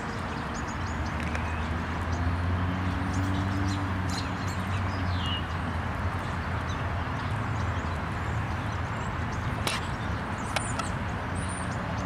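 Outdoor ambience of wild birds giving short, scattered high chirps over a low, steady mechanical hum and a constant background hiss, with a couple of sharp clicks near the end.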